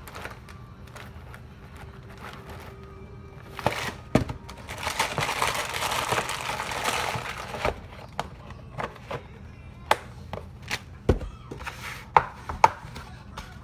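Dry Bisquick baking mix poured from its box into a bowl: a soft rushing hiss lasting about four seconds. Then scattered knocks and taps as packages are handled and set down on the countertop.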